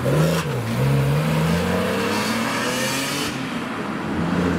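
BMW E46 M3's straight-six accelerating away. The note rises, drops with a gear change about half a second in, then climbs steadily again.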